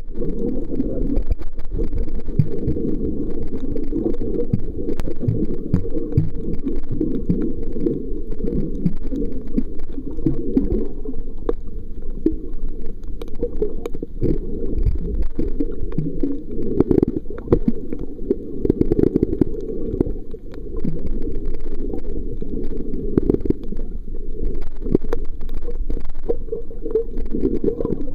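Muffled underwater rumbling and sloshing picked up by the microphone of a Kodak Playsport Z5 waterproof camera held underwater, with many scattered small clicks and crackles.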